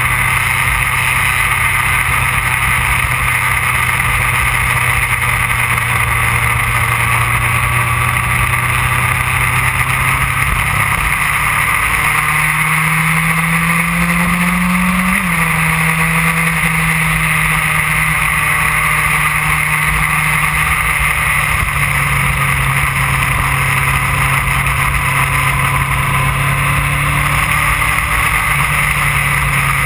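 2008 Yamaha R1's inline-four engine running at cruising speed under a constant rush of wind and road noise. About halfway through the engine note climbs for a few seconds as it accelerates, then drops suddenly and settles back to a steady tone, with another small drop near the end.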